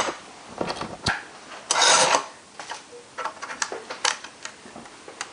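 Light clicks and taps of small iPhone case parts being handled and pressed into place by hand, with a short scratchy rustle about two seconds in.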